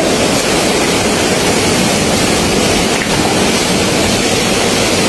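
Loud, steady rushing noise of typhoon wind and rain, with no breaks or distinct events.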